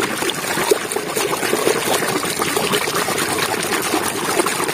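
A hand swishing and scrubbing a plastic toy car in a basin of thick, foamy muddy water: continuous wet sloshing with many small crackles.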